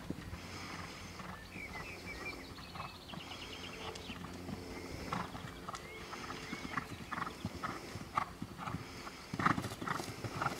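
A horse cantering on grass, its hoofbeats falling in a regular rhythm that gets clearer in the second half as it comes closer.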